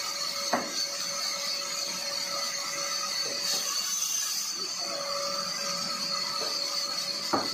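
Vertical band saw sawmill running with a steady whine as its blade rips through a squared timber, with a sharp knock of wood on the steel table about half a second in and another near the end.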